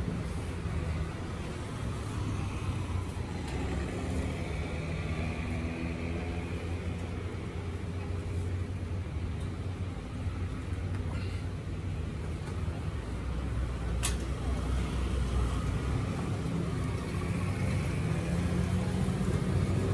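Street traffic noise with a steady low engine hum, and one sharp click about fourteen seconds in.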